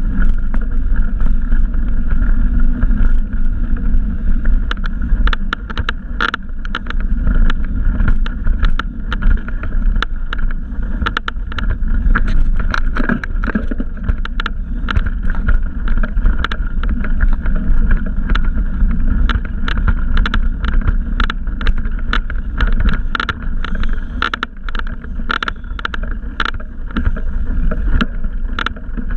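Bicycle ridden along a dirt trail, heard through a GoPro camera's microphone: a steady low wind rumble, with frequent small clicks and knocks as the bike jolts over the trail surface.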